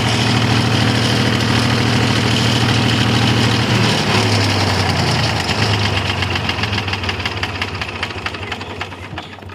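Mahindra generator's diesel engine running with a steady clatter, then dropping in speed about four seconds in and winding down, its sound fading gradually.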